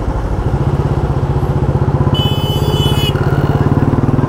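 Motorcycle engine running steadily while riding, with a high-pitched beep lasting about a second, about two seconds in.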